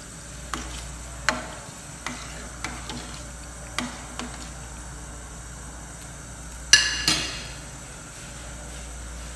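A spoon stirring broth in a stainless steel pot, clinking against the pot's sides about twice a second, with two louder clanks about seven seconds in.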